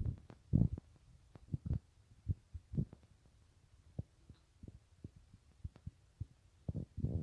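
A puppy gnawing and pawing at a red toy on a tile floor: irregular dull thumps and short taps, with a cluster of louder ones about half a second in and again near the end.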